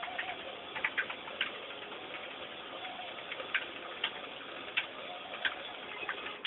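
Computer keyboard being typed on: irregular key clicks over a steady hiss.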